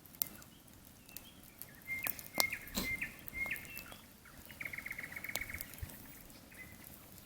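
Nightingale singing: a few short whistled notes, then a fast rattling run of repeated notes about two-thirds of the way in. Campfire crackling and popping throughout.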